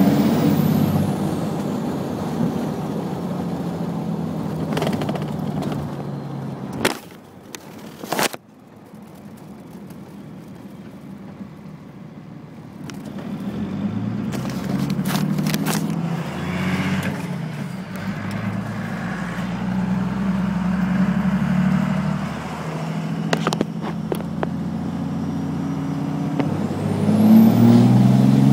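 1st-gen Dodge Cummins 5.9 turbo-diesel pulling, its HX35 turbo whistling loudly without a silencer ring, heard through an open truck window. The engine drops off with a couple of sharp clicks about seven or eight seconds in and runs quieter for several seconds. It then pulls again, the turbo whistle rising near the end.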